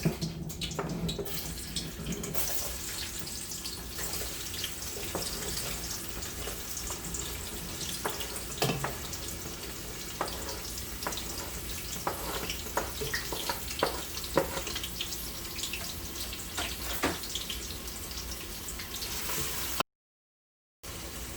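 Chopped onions sizzling in hot olive oil in a pan on high heat, a steady hiss with occasional sharp clicks. The sound drops out for about a second near the end.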